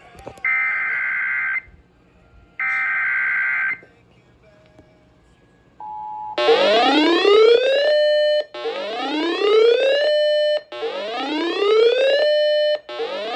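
Emergency Alert System tones. First come two buzzy digital SAME header data bursts about a second each, then a pause. Then a short steady tone and a series of about four rising whooping alert tones, each about two seconds long.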